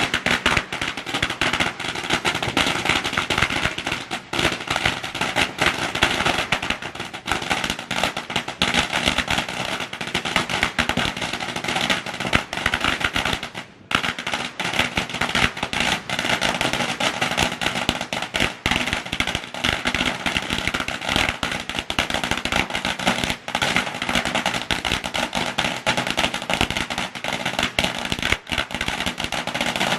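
A long string of firecrackers going off in rapid, continuous crackling pops, with a brief pause about 14 seconds in.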